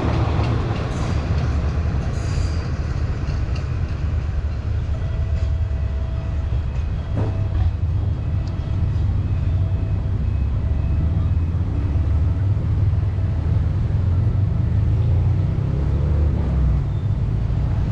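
Passenger coaches of a Thai diesel-hauled train rumbling past, then fading as the train pulls away. A strong, steady low rumble stays underneath, with one sharp click about seven seconds in.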